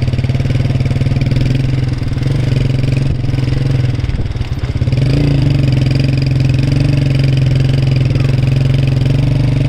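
A steady engine drone, as from a running vehicle, a little louder after about five seconds.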